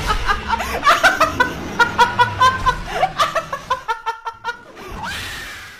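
A young woman laughing wildly in rapid, rhythmic bursts, several a second, ending in a longer drawn-out high sound near the end.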